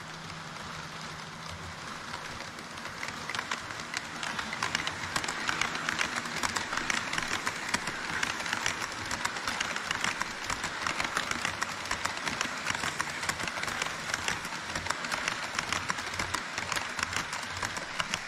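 HO-scale model trains running on Kato Unitrack: a steady rolling rattle of small wheels over the rails and rail joints, with a dense run of clicks. It gets louder about three seconds in as a model E5 series Shinkansen runs close by on the near track.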